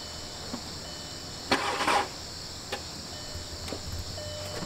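A car failing to start on a weak battery: one short burst of noise about a second and a half in as the key is turned, then only a couple of faint clicks, with no engine catching.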